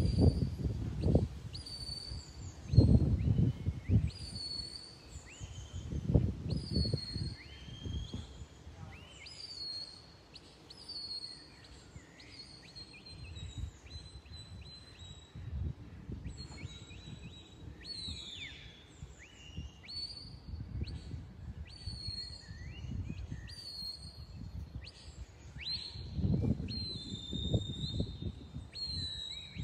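Birds singing, short chirps and slurred notes repeating without a break, over gusts of wind buffeting the microphone, the gusts strongest near the start and again a few seconds before the end.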